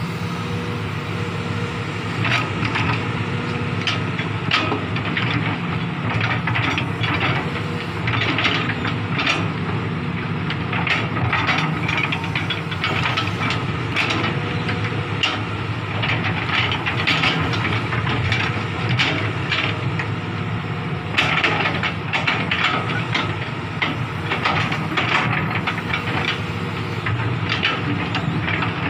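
Hitachi hydraulic excavator's diesel engine running steadily under load, with the steel bucket scraping and crunching through rocky soil in an irregular run of clatters.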